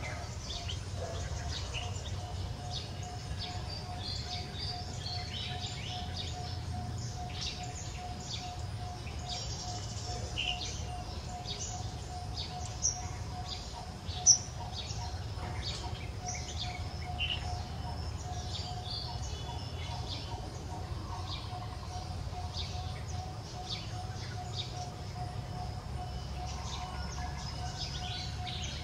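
Outdoor ambience of many short bird chirps scattered throughout, over a steady low rumble and a faint constant tone. One sharp click stands out a little past halfway.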